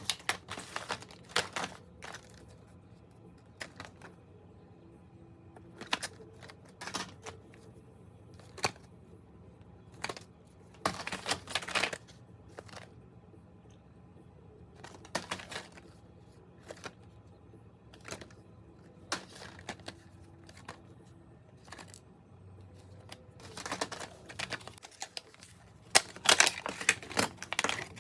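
Hands handling a wireless doorbell and its plastic parts or packaging: scattered clicks and taps, a few short rustles, and a quick flurry of clicks near the end.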